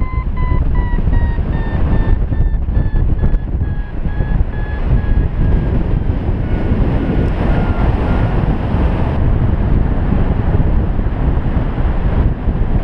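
Wind buffeting the action camera's microphone in paragliding flight, with a variometer beeping in quick repeated tones. The beeps slowly fall in pitch, a sign of the climb weakening, and fade out about seven seconds in.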